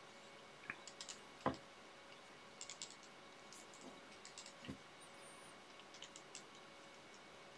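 Faint, scattered small clicks and taps from handling at the fly-tying bench, with a sharper knock about a second and a half in and a softer one near five seconds.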